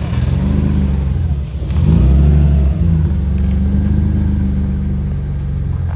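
Car engine running, revving up briefly a little under two seconds in, then settling back.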